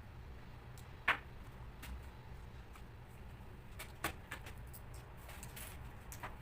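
Scattered clicks and taps of small plastic and metal laptop parts and tools being handled during disassembly, with a sharp click about a second in and a short scraping noise near the end, over a low steady hum.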